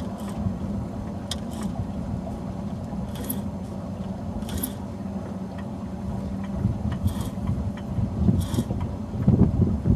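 Aquarius 21 sailboat moving slowly under mainsail in a light breeze. Short hissing splashes of water against the hull come every second or two over a steady low hum. Wind buffets the microphone, growing gustier in the last few seconds.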